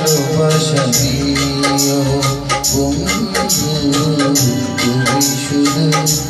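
Backing music of a Bengali song, with a steady beat of bright percussion hits over a bass line and melody.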